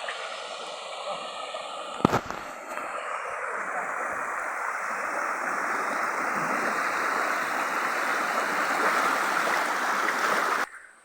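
Flowing stream water rushing steadily, growing louder over several seconds, with a single sharp knock about two seconds in. It cuts off suddenly near the end.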